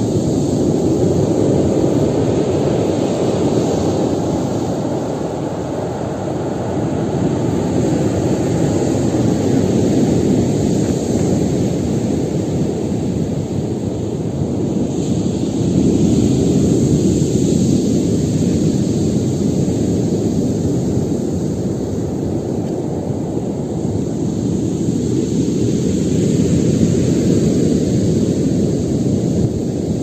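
Storm surf on the sea: heavy waves breaking continuously, the rushing noise swelling and easing every several seconds, with a hissing wash of spray about halfway through.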